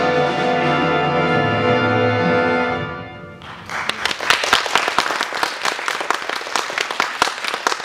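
A jazz big band's final held chord, brass to the fore over the rhythm section, dies away about three seconds in. Audience applause starts half a second later and carries on.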